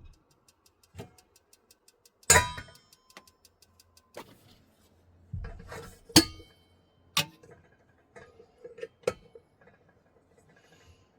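Camping cookware being handled to brew tea: separate metal clinks and knocks, the loudest about two seconds in and again about six seconds in, with a run of rapid, even ticks early in the sequence.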